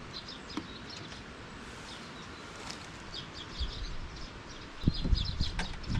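Small birds chirping repeatedly in short calls over a steady background hiss, with a few low bumps near the end.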